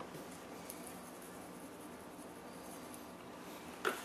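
Quiet kitchen room tone with faint handling sounds, then a single short knock near the end.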